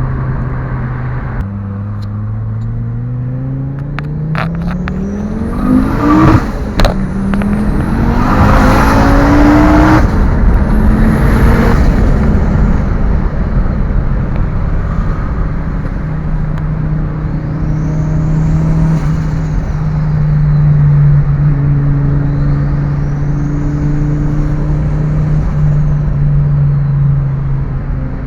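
Fiat Marea Turbo's five-cylinder turbo engine pulling hard, its pitch climbing for several seconds. About six seconds in, as the throttle is lifted, come sharp cracks and a burst of rushing hiss: the turbo's 'espirro' and flutter, the boost venting back through the turbo. The engine then runs on at a steady cruise.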